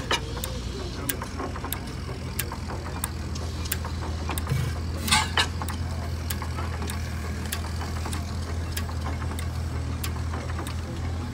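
Fairbanks-Morse 4 HP stationary engine running, with a steady low hum and light mechanical clicks about twice a second. A louder, sharper burst comes at the very start and again about five seconds in.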